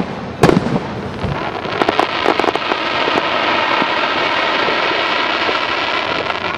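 Aerial firework shell bursting with a sharp bang about half a second in, followed by a dense crackling from the falling sparks that swells and holds for several seconds before stopping near the end.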